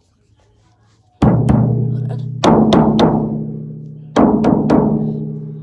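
Hard rubber hockey puck knocked against a metal bunk-bed frame: eight loud knocks in three groups, two then three then three. Each group leaves the frame ringing with a low hum that fades away.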